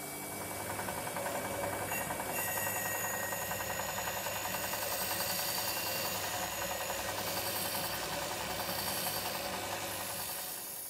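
DeWalt bench grinder running with the metal base of a kerosene lamp pressed against its wheel for polishing: a steady, fast rattling hum that eases off slightly near the end.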